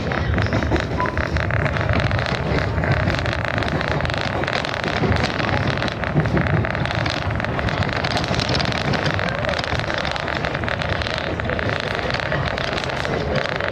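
Passenger train car rolling along the track, heard from aboard: a steady rumble with a dense, continuous rattle and clicking of the wheels and car, and wind on the microphone.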